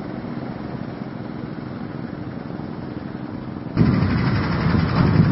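Engine of an amphibious rice thresher running steadily as the machine drives through a flooded paddy field. About four seconds in it becomes suddenly much louder and stays so.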